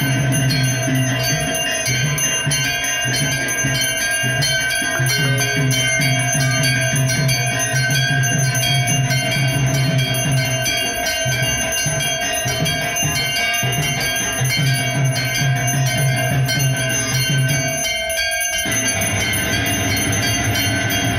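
Temple bells ringing rapidly and continuously for aarti, with a deep steady sound underneath. The sound breaks off briefly about eighteen seconds in, then resumes.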